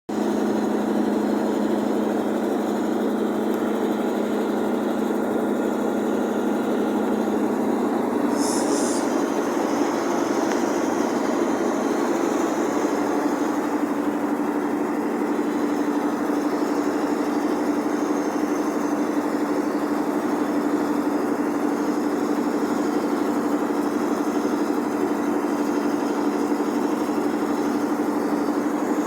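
Generator engine running steadily with a constant hum; its pitch steps up slightly about eight seconds in and then holds.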